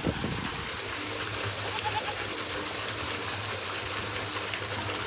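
Steady trickling water.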